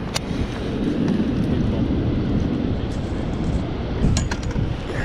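Wind buffeting the microphone over rushing river water, a steady low rumble, with a few sharp clicks and knocks of handling just after the start and again about four seconds in.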